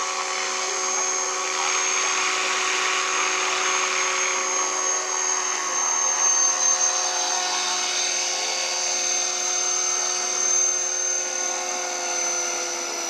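Electric radio-controlled Align T-Rex 500 helicopter hovering and landing. A steady high-pitched whine sits over the buzzing hum of the spinning rotor, and the pitch sags slightly near the end.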